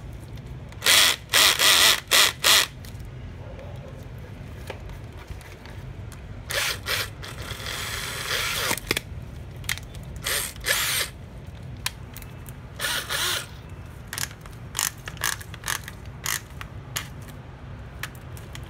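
Hitachi FDS 12DVC cordless drill/driver run in short trigger bursts: several quick ones about a second in, a longer run of a couple of seconds near the middle, and a few more after it. Between the runs, the clutch-setting ring clicks as it is turned through its numbered settings.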